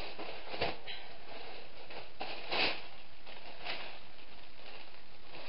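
Clear plastic wrapping crinkling and rustling as a tote bag is pulled out of it, in a few short rustles, the loudest about two and a half seconds in.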